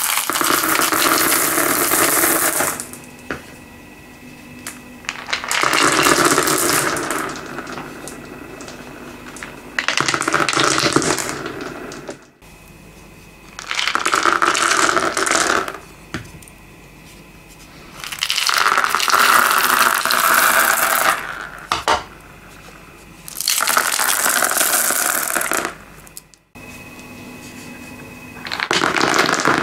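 Bowls of small glass gems, beads, pearls, acrylic gems and wooden balls tipped out one after another onto a wood-look floor. There are about seven clattering spills, each lasting two to three seconds, with quieter pauses between them; the last one starts near the end.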